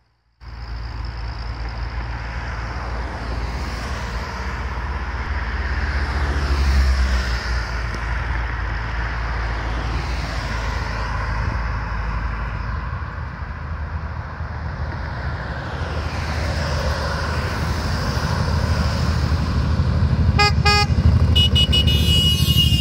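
Road traffic passing with a low engine rumble that grows louder as a column of motorcycles approaches. Vehicle horns toot a few times near the end.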